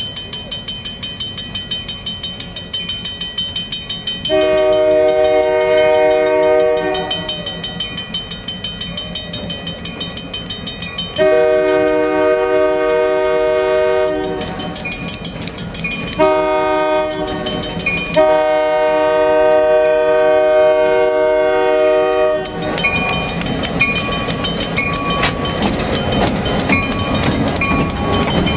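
Railroad crossing bell ringing rapidly as an approaching diesel freight locomotive sounds its air horn for the crossing in the standard long, long, short, long pattern. In the last few seconds the freight cars rumble and clack over the crossing while the bell keeps ringing.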